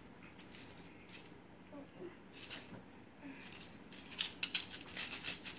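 A small jingling toy rattle being shaken in short bursts. The shakes are spaced out at first, then come quick and louder over the last second and a half.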